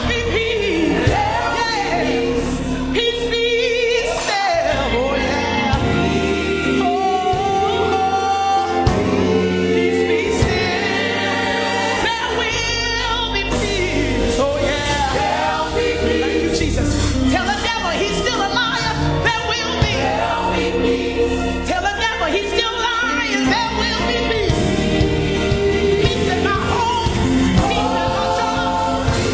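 Gospel song with lead and choir vocals over a full band accompaniment.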